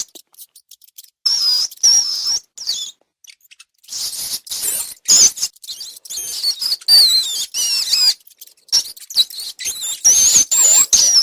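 Rats squeaking: high, wavering squeals in three bouts, with short gaps between them.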